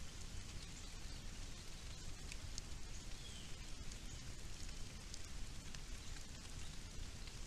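Steady hiss of outdoor background noise picked up by a trail camera's microphone, with a few faint ticks and a brief faint chirp about three seconds in.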